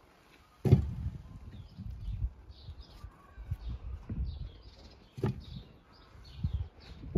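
Small birds chirping repeatedly in the background, with two sharp knocks about a second in and again about five seconds in.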